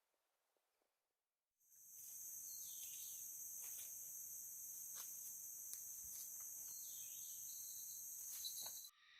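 Steady, high-pitched shrilling of insects, starting abruptly about a second and a half in and cutting off suddenly near the end, with a few faint clicks.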